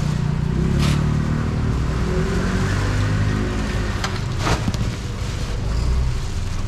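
An engine running steadily with a low, even hum, with a few sharp clicks over it, about a second in and again past the middle.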